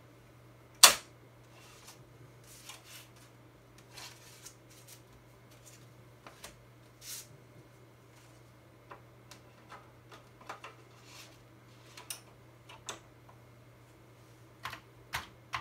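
5.25-inch floppy disks in paper sleeves being handled: rustling and sliding, with scattered light clicks and one sharp, loud click about a second in. A low, steady hum runs underneath.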